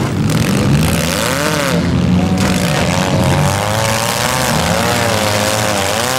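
Engines of several front-wheel-drive compact demolition derby cars revving hard, pitch rising and falling again and again, as the cars shove against each other with wheels spinning in the dirt.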